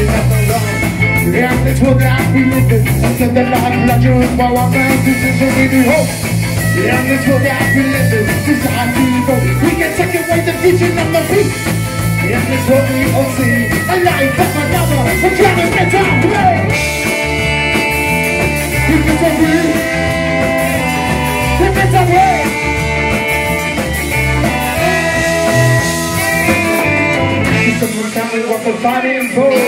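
Live band playing, with a singer over a horn section of saxophone and trombone, electric guitar, bass and drums. Through the second half there are longer held notes, and the low end drops out near the end.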